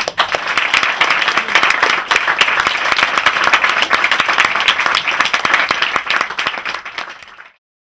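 Small crowd applauding: dense, steady hand clapping that cuts off abruptly near the end.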